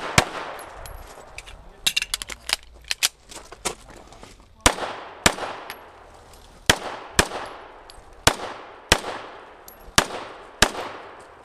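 STI Trojan 1911-style pistol firing: one shot at the start, then four quick double-taps, about half a second between the shots of each pair, with a short echo after each. A few lighter clicks and knocks come in between, about 2 to 4 seconds in.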